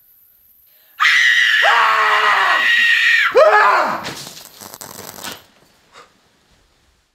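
A loud scream in two cries, each falling in pitch, followed by a few seconds of fading crackle and a small click.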